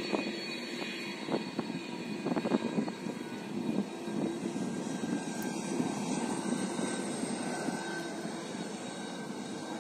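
Jet airliner's engines running as the plane rolls along the runway: a steady rushing noise with a faint high whine. There are a few sharp knocks in the first three seconds.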